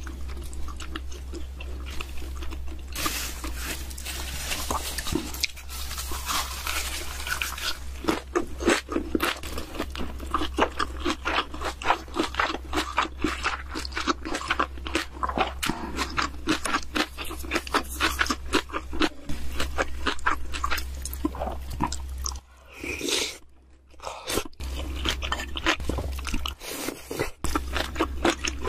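Close-miked ASMR eating: rapid, continuous crunching and chewing of food, with a steady low hum underneath. The crunching breaks off briefly about three quarters of the way through, then resumes.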